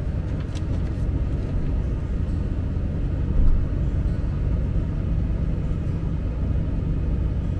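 Steady low rumble of a pickup truck heard from inside its cab, with a brief louder bump about three and a half seconds in.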